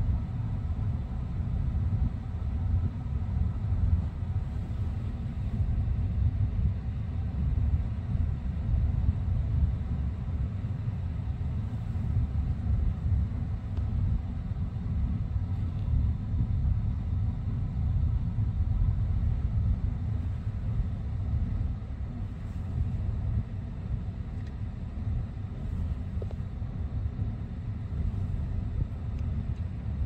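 Kubota compact tractor's diesel engine running with a steady low rumble.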